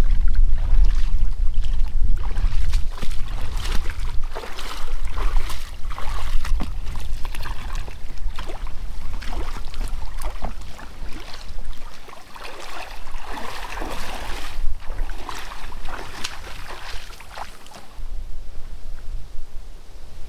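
Water splashing and trickling around a kayak, in irregular bursts, with wind rumbling on the microphone for the first few seconds.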